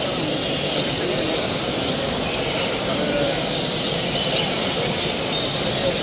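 Many caged show finches and canaries chirping and singing at once: a dense, overlapping chorus of short high calls with no pauses, over a steady low murmur.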